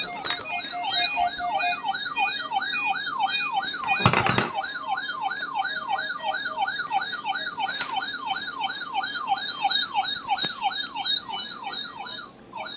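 A siren sounding in a fast yelp, its pitch sweeping up about three times a second, with a higher warbling tone above it. There is a thump about four seconds in, and the siren breaks off briefly near the end.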